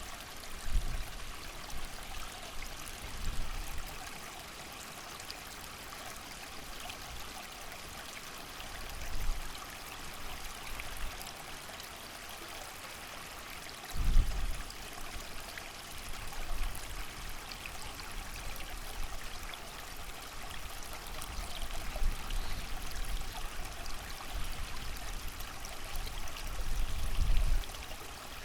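A creek running steadily, with rain, and gusts of wind rumbling low at irregular moments, the strongest about halfway through and several more toward the end.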